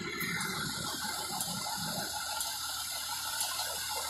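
Parked fire engine running, a steady hiss over a low rumble, with a faint tick about once a second.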